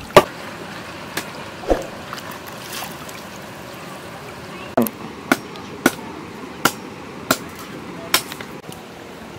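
A stream trickles steadily while sharp knocks sound at irregular intervals, about ten in all. The loudest, just after the start, is a knife chopping fish on a board.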